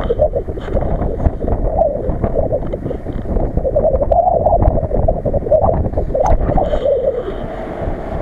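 Multicopter drone's propellers running, a steady droning hum whose pitch wavers up and down, with wind buffeting the microphone.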